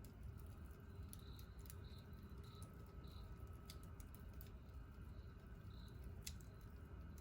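Wood campfire crackling faintly, with scattered sharp pops, the loudest about six seconds in. Behind it, an insect chirps at an even pace, roughly twice a second.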